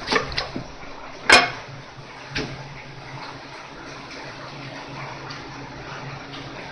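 Knife and hand work on a whole mullet on a wooden cutting board: a few light clicks, a single sharp knock about a second in, and a softer knock a second later. After that comes a steady low hiss while the fish is handled.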